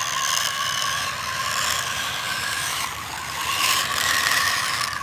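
Small motor whirring steadily, a continuous mechanical whir with a steady high tone.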